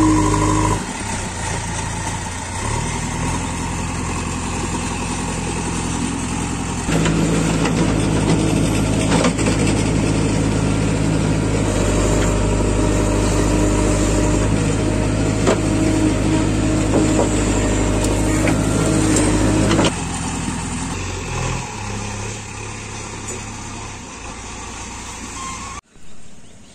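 A JCB 3DX backhoe loader's diesel engine runs under working load as it loads its front bucket, its note stepping up and down a few times. There are a few short clanks, and the sound drops away suddenly near the end.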